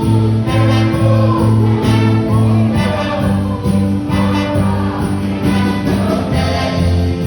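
Church worship music played loud, with a pulsing bass line of about two notes a second, sustained notes above, and a shimmering high percussion.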